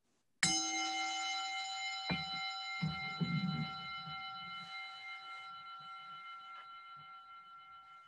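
A small bell struck once about half a second in, its tone ringing on and slowly fading. There is a light knock about two seconds in and brief handling noise near the three-second mark while it rings.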